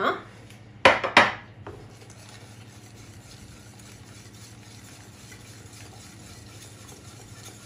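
Dark chocolate tipped into a steel saucepan of hot orange caramel, with two sharp knocks about a second in, then a wire balloon whisk stirring in the pan with a faint, steady scraping as the chocolate melts into the caramel.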